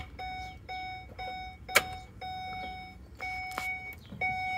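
2009 Ford E-250 Econoline's dashboard warning chime beeping over and over, a steady single-pitched tone in beeps of uneven length, with one sharp click a little under two seconds in.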